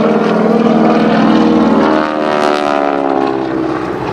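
A North American T-6 Texan's Pratt & Whitney R-1340 radial engine and propeller run loudly as the plane flies by. The engine note falls in pitch as the plane passes, from about two seconds in.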